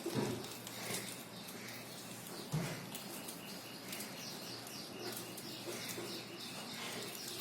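Pet lovebirds moving about and feeding, with many small scattered clicks and rustles and a few faint short chirps.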